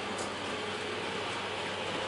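Model train approaching on the layout, hauled by a model BB 8100 electric locomotive: a steady rolling, whirring noise that slowly grows louder as it nears.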